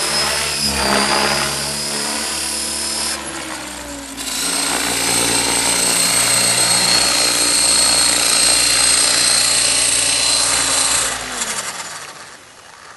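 Outrage 550 electric RC helicopter flying: a steady high motor-and-gear whine over a lower rotor hum, growing louder about four seconds in. Near the end it is on the ground and the rotor spools down, the whine falling in pitch and fading.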